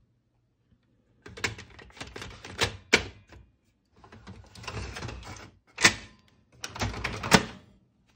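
Plastic clicks, knocks and rattles of a laser printer's black toner cartridge being slid back into the printer and seated, in several clusters with two sharp clicks in the second half.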